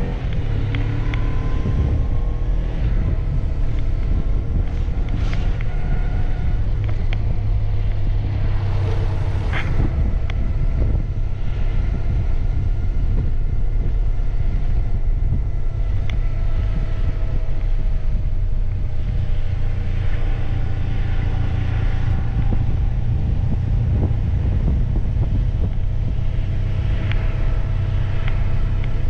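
Honda CB750F's air-cooled inline-four engine running steadily while riding, its pitch drifting only a little, with wind noise on the microphone.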